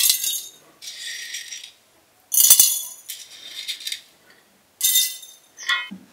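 Dried black peppercorns poured from a wooden dish into empty glass jars, rattling and pattering against the glass in about five short pours with brief pauses between them.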